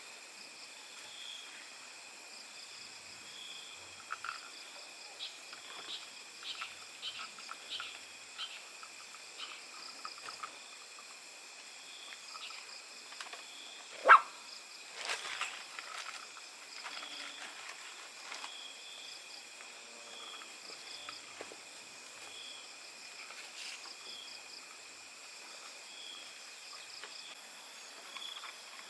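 Steady chorus of insects such as crickets, with short chirps repeating throughout. Scattered small clicks sound over it, and one sharp knock comes about fourteen seconds in.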